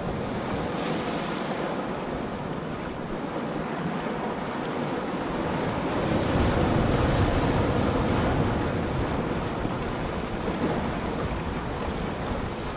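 Ocean surf washing in among rocks onto a sandy beach: a continuous rush of breaking and swirling water that swells a little about halfway through.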